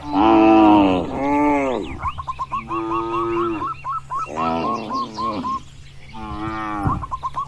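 Cattle mooing, about five long calls one after another, the first the loudest. Between the moos come runs of short, quick high notes.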